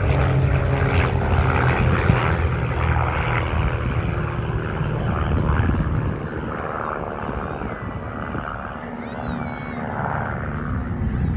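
Propeller engines of a formation of Van's RV-8 aerobatic aircraft droning as they pass, the pitch falling, the sound dropping away after about six seconds.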